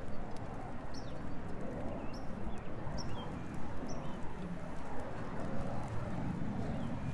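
Two Jindo dogs' paws stepping on wet pavement over a steady hum of street traffic, with short high falling chirps about once a second.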